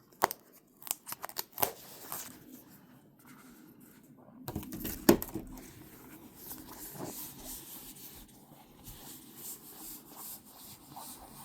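Plastic packaging around a card-game play mat being handled and opened: rustling with scattered sharp clicks, the loudest about five seconds in.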